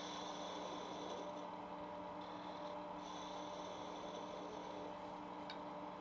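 Wood lathe running with a steady motor hum while a parting tool cuts into the spinning turned wood at the bird's nose, adding a thin high hiss that comes and goes. A faint click near the end.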